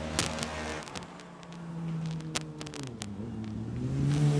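A motor vehicle engine running, its pitch dropping about three seconds in and rising again near the end, with a few sharp clicks over it.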